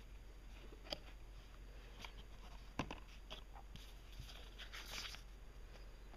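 Faint handling sounds of a hard plastic carrying case being opened: a few short plastic clicks and knocks, the loudest near three seconds in, then a light rustle of paper documents being moved inside the case.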